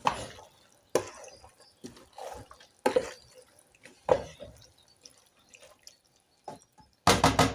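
Spoon stirring boiled beans in a sufuria cooking pot: wet, squelchy strokes roughly once a second. A short, louder burst comes near the end.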